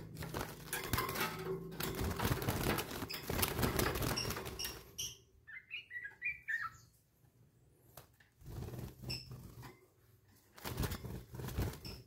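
Clicking and rustling of a wire birdcage being handled, with the caged yellow-vented bulbul moving about, for the first few seconds; then a quick run of short chirps from the bulbul about five and a half seconds in, followed by a few softer rustles.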